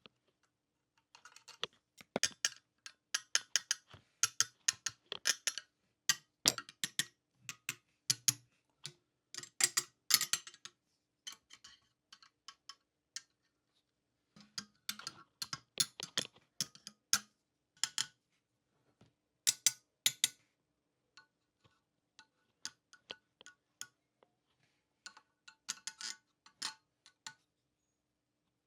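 Small plastic and metal parts of a 1:18 diecast model car being handled during disassembly and reassembly: irregular clicks and taps in quick clusters, with short pauses between them.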